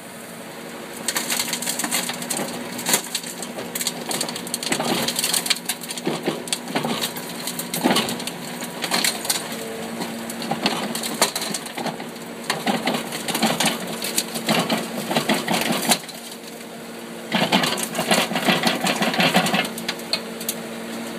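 Excavator bucket tipping soil and stones onto a belt conveyor: repeated bursts of clattering, scraping rubble over the steady hum of the excavator's engine.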